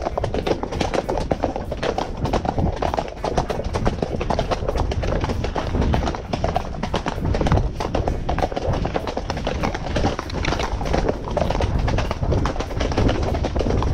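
Horse hooves clip-clopping on a dirt trail, a dense run of knocks, with music underneath.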